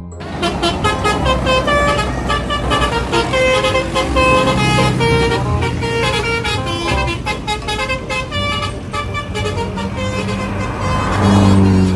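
A bus's telolet horn playing a rapid run of short musical notes over the low rumble of its engine. A louder, deeper tone comes in near the end.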